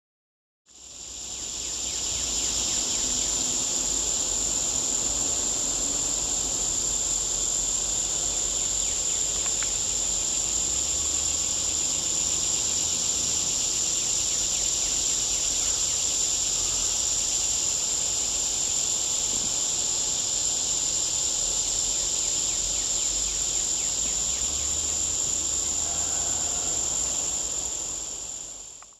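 A dense, steady chorus of insects, high-pitched and unbroken, fading in about a second in and fading out at the end.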